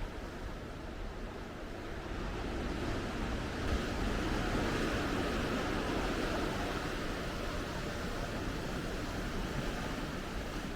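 Ocean surf: a wave breaking and washing up the shore, the rush of water swelling about two seconds in and slowly easing off.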